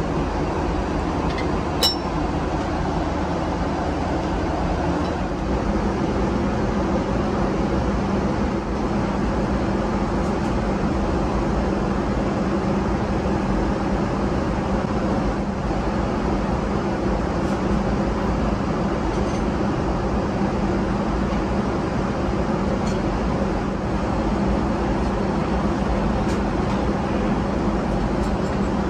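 Steady in-flight cabin drone of a Boeing 777-300ER, the constant noise of jet engines and airflow heard from inside the cabin. About two seconds in, a single light china clink, as a porcelain teapot lid is handled.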